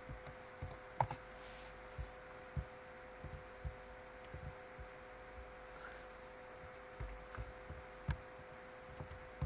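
Quiet room tone: a steady electrical hum with irregular soft low thumps and a few clicks from a computer mouse being clicked and moved on a desk.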